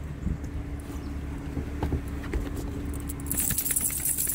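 A vehicle engine runs with a steady low hum, with scattered light clicks. From about three seconds in comes a bright metallic jingling as a car door is pulled open.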